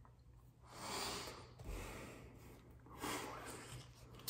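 Two heavy breaths, about two seconds apart, then a sharp click near the end as the plastic soda bottle's screw cap is twisted.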